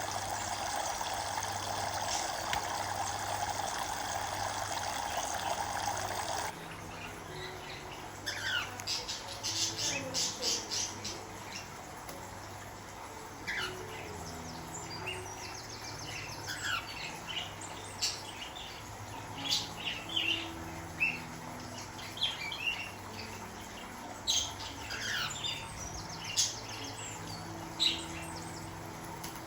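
Running water for about six seconds, stopping abruptly, then cockatiels chirping and calling in short, scattered bursts.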